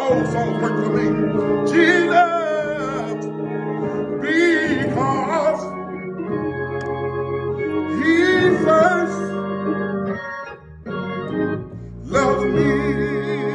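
A man singing a gospel hymn in phrases, with vibrato on the held notes, over a steady organ accompaniment that carries on alone between phrases.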